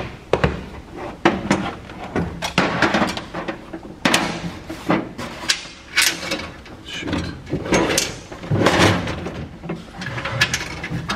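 Irregular knocks, clicks and clatter of tool-cabinet parts and drawers being handled and fitted.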